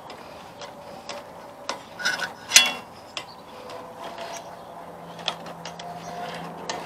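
Scattered light clicks and knocks of hand tools and metal parts being handled as a small-engine carburetor is worked loose from its mounting studs, with one louder knock about two and a half seconds in.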